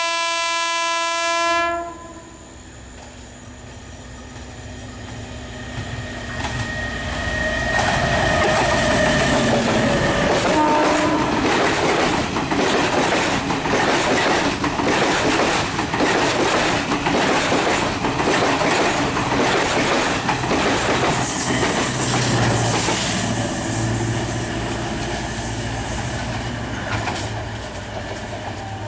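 Sri Lanka Railways Class S11 diesel multiple unit sounding a steady single-note horn that stops about two seconds in. The train then comes up and passes, its wheels clattering in a rhythm over the rail joints, loudest through the middle; near the end a diesel engine's low drone rises as a power set approaches.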